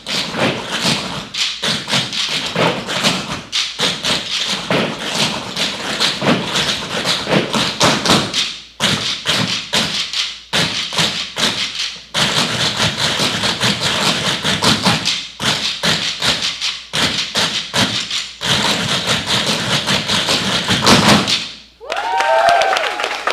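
Tap shoes of a group of dancers striking a wooden floor in fast rhythmic unison, in phrases broken by short pauses. The taps stop abruptly near the end, and a brief pitched sound follows.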